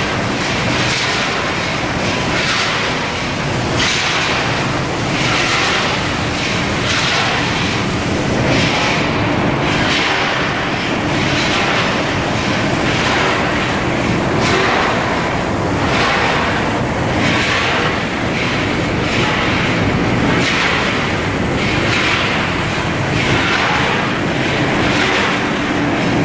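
Bag packaging machine running, a steady mechanical din with a hissing burst about once a second as it cycles.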